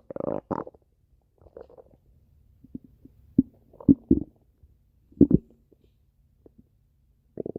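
A person's stomach growling: a thick gurgle at the start, then scattered short gurgles and pops, and a quick run of small pops near the end.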